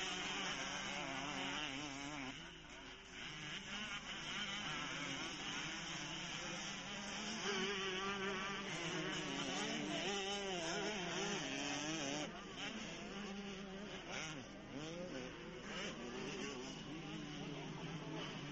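Motocross dirt bike engines racing, a buzzing whine that rises and falls in pitch over and over as the riders open and close the throttle through the course.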